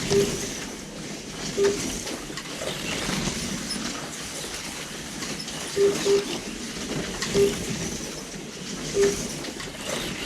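Slot cars running around a home track, a steady whirring rush, with six short electronic beeps from the lap-timing system as cars cross the line, two of them close together about six seconds in.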